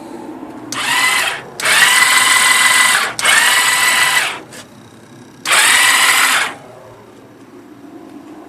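Electric starter motor of a 2001 Yamaha V-Star 1100 whining in four separate presses of about a second each, a steady high whir with no engine firing. The bike does not start.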